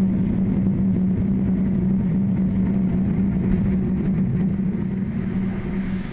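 Low, continuous rumble of a dynamite-imploded high-rise hotel tower coming down, with a few faint cracks from the charges. It eases off near the end as the tower settles into its dust cloud.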